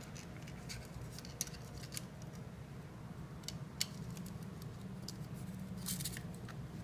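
Scattered light clicks and rustles of small wires being handled and fed through a hole in a 3D-printed plastic back plate, over a low steady hum.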